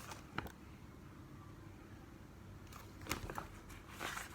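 Faint handling of a picture book as a page is turned: a soft tick just under half a second in, then a few light clicks and paper rustling from about three seconds in.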